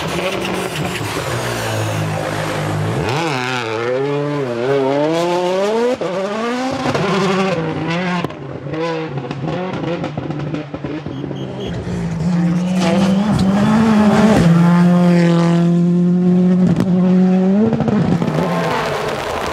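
World Rally Cars' 1.6-litre turbocharged four-cylinder engines revving hard, the pitch rising and falling through gear changes. In the second half one engine holds a high, steady note for several seconds, then cuts off sharply.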